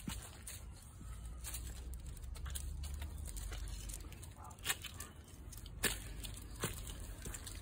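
Shiba Inu walking and sniffing over dry fallen leaves on stone steps: faint rustling with several sharp clicks in the second half, over a low rumble on the microphone.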